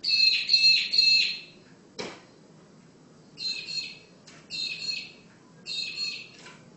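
A bird calling in four bursts of rapid repeated notes, the first the loudest. About two seconds in comes one sharp knock, the bird striking the window glass.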